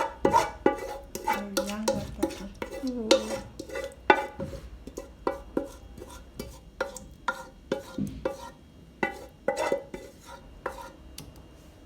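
A metal spoon knocks and scrapes in a metal saucepan while food is spooned and stirred in it. The clinks come irregularly, about two a second, and the pot rings briefly after each one.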